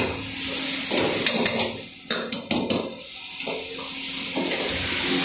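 Steel ladle knocking and scraping against an iron wok as mixed vegetables are stir-fried, with a quick run of sharp metal clanks about two seconds in.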